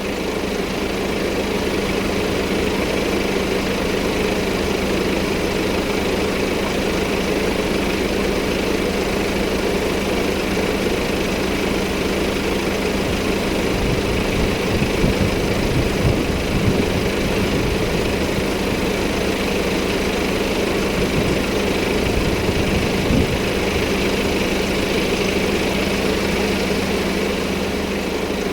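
An engine idling steadily, with a few low knocks about halfway through.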